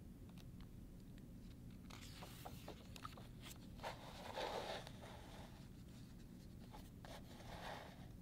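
Faint rustling and sliding of stiff picture-book paper as a page is turned and a large fold-out page is opened out, with a few small ticks. The loudest rustle comes about four and a half seconds in.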